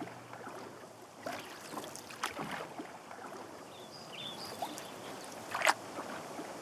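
Short water splashes a few seconds apart over a steady hiss of moving water, with a couple of faint high chirps near the middle.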